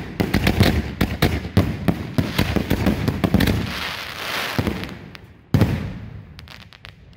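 Consumer aerial fireworks bursting overhead: a dense, rapid string of sharp bangs for about three and a half seconds, then a stretch of hiss. One more loud bang comes about five and a half seconds in, followed by scattered smaller pops.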